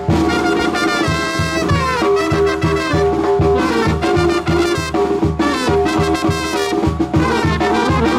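Mexican brass band music: trumpets and trombones playing an instrumental passage of held notes over a steady low beat.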